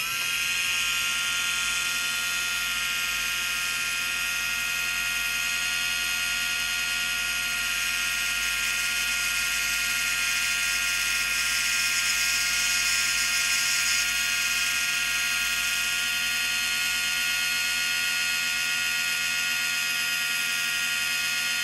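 Hudy commutator lathe's electric motor switching on and spinning up within a second, then running with a steady, even whine. It turns a three-segment slot car armature while the cutting tool takes a truing cut off its burnt, pitted commutator.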